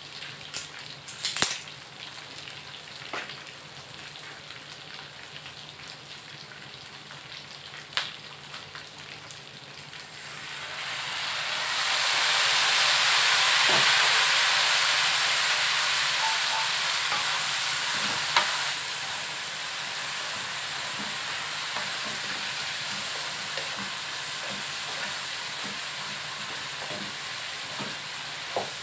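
Peanuts and garlic frying in a pan: a low sizzle with a few sharp pops, then about ten seconds in the sizzle swells into a loud hiss that slowly eases off. A wooden spatula scrapes and stirs the peanuts near the end.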